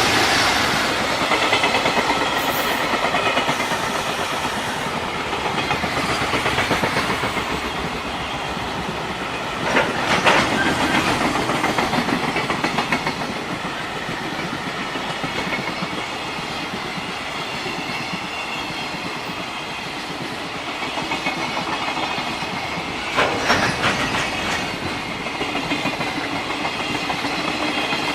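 A freight train's wagons rolling past, wheels clacking rhythmically over the rail joints, with two brief louder clatters, one about ten seconds in and one about two-thirds of the way through.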